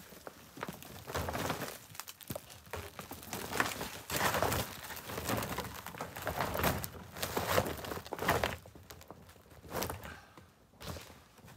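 A fabric snowmobile cover rustling and crinkling in irregular bursts as it is dragged and tugged over the snowmobile, with a few dull thumps.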